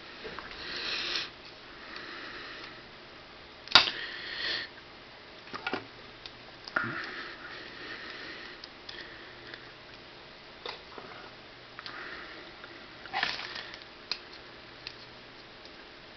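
Handling of a plastic 1/144 HG model kit, with small clicks and one sharp click about four seconds in as its parts are moved. A few short sniffs are heard close to the microphone.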